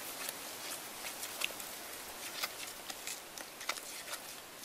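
Metal spoon stirring a thick flour-and-water batter in a plastic bowl: irregular light clicks and scrapes of the spoon against the bowl over a steady hiss.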